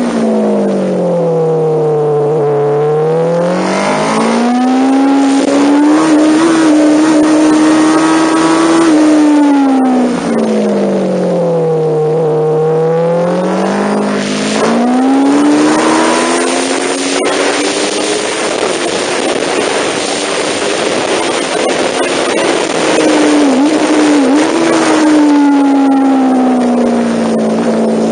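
MV Agusta Brutale motorcycle engine ridden hard on a track. Its revs fall twice as it slows for corners and climb again under throttle, holding high in between. Loud wind rush takes over mid-way, and the revs drop again near the end.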